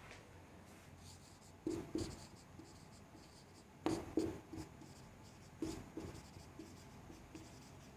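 Marker pen writing on a whiteboard: three short clusters of strokes, about two seconds apart.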